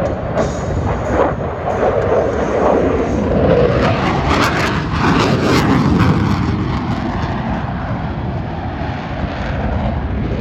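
Twin-engine F/A-18 Super Hornet jet noise, loud and continuous as the jet passes, with a harsher, brighter stretch about four to six seconds in.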